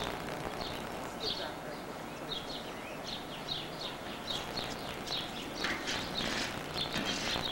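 Small birds chirping outdoors: a run of short, high chirps several times a second, growing louder and fuller near the end.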